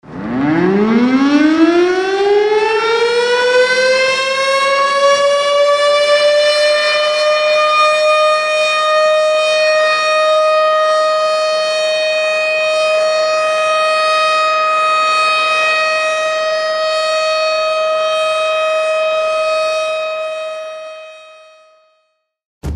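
Civil defense alert siren sounding the earthquake warning: it winds up from a low growl to a high, steady wail within the first few seconds, holds that one tone, and fades out near the end.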